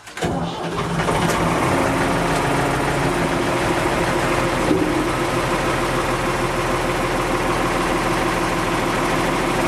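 The three-cylinder diesel engine of a 1980 Ford 550 backhoe loader runs steadily as the front loader bucket is raised on its hydraulics.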